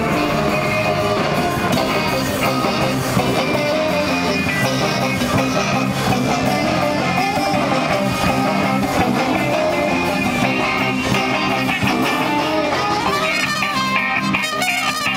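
A live band playing guitar-led music.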